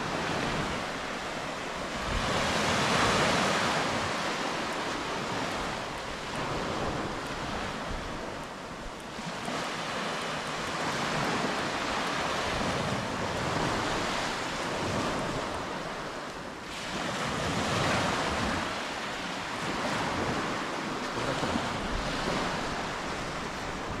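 Small waves breaking and washing up a sand-and-pebble beach, the surf swelling and easing every few seconds, with some wind on the microphone.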